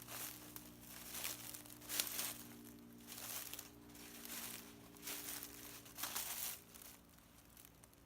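Footsteps crunching through dry fallen leaves, about one step a second, fading out near the end.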